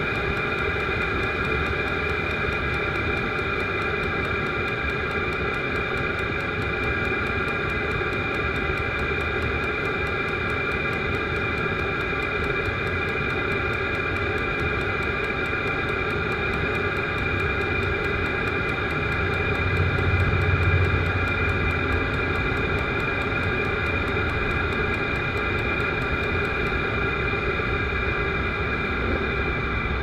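Vevor diesel air heater running: the steady whine of its blower fan over a combustion hum, with a brief low rumble swelling about two-thirds of the way through. The heater is overheating and about to shut down on its E05 code, which the owner traced to a too-narrow extension tube with many bends.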